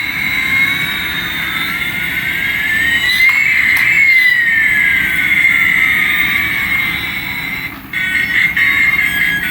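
Electronic toy's synthesized engine sound effect: a steady hiss with a high whine, and tones that sweep up and then down in pitch, briefly dipping near the end.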